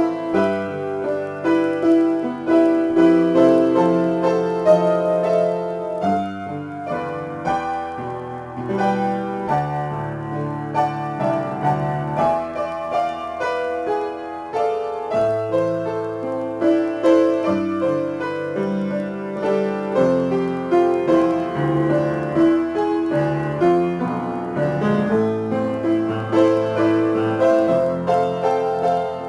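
Upright piano played solo, both hands: an unbroken, flowing improvisation in A minor, notes sounding without a pause.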